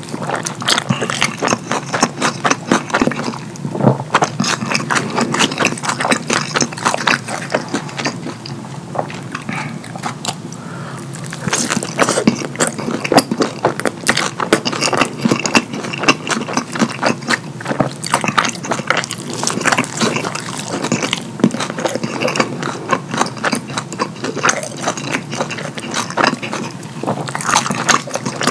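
Close-miked messy eating of cheesy pizza with cheese sauce: wet chewing and lip smacking in a dense run of sticky clicks and smacks, easing off briefly around nine to eleven seconds in.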